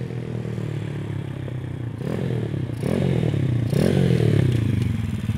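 Honda CT70 mini bike's small single-cylinder four-stroke engine running as it is ridden, its revs climbing three times in quick succession and dropping back after each.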